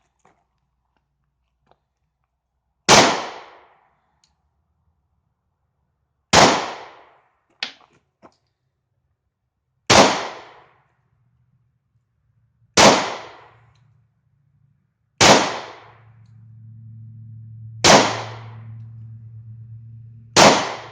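Seven 9mm pistol shots from a German P.08 Luger, fired one at a time about three seconds apart until the magazine runs empty, each with a short decaying echo.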